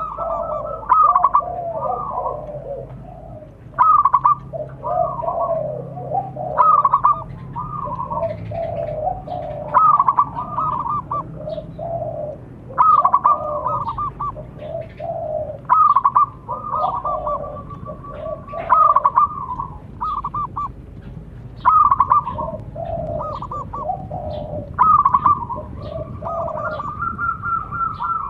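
Zebra doves (perkutut) cooing: phrases of short, bubbling notes repeated about every three seconds. Notes at a higher and a lower pitch overlap.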